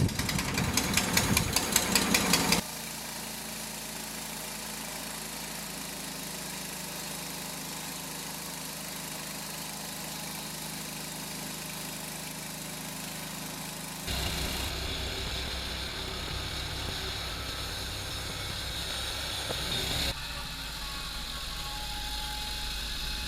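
An engine running steadily. The opening two and a half seconds are louder and fast-pulsing, and then it settles to an even run. The character of the sound changes abruptly twice, near the middle and about three-quarters through.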